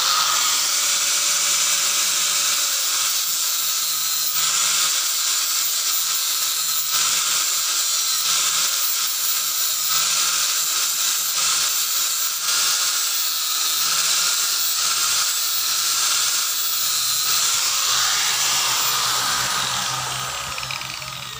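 Electric angle grinder running steadily, its disc cutting a groove into a wooden sleeve fitted on a metal pipe. Near the end it is switched off and its whine falls as the disc spins down.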